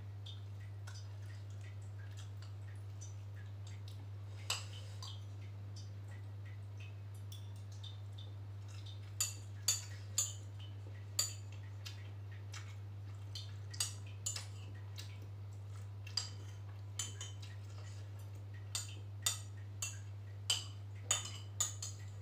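A spoon clinking and scraping in a glass bowl of bakso: sharp, irregular clinks, a few close together, mostly in the second half. A steady low electrical hum runs underneath.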